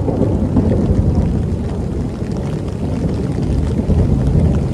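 Heavy rain pouring steadily, with a deep rumble underneath.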